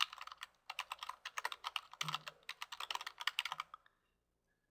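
Typing on a computer keyboard: a fast, uneven run of keystrokes that stops about a second before the end.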